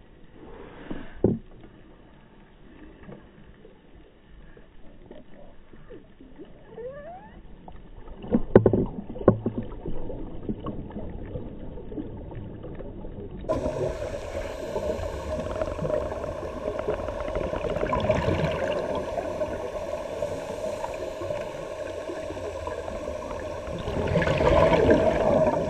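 Underwater sound picked up through a GoPro's waterproof housing: scuba divers' regulator breathing, with a swell of exhaled bubbles every several seconds and a few sharp knocks against the housing. After about 13 seconds it becomes fuller, with a steady drone under it.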